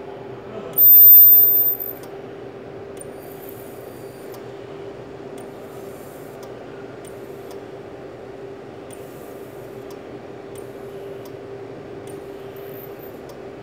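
Handheld plastic-welding tool running against a plastic tank with a steady hum. About a second in, a loud, very high-pitched whine sounds for about a second.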